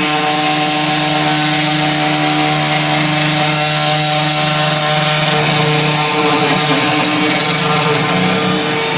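3018 desktop CNC router carving wood: the spindle motor runs with a steady whine while the bit cuts with a hiss. The low tone shifts slightly about six seconds in as the machine moves.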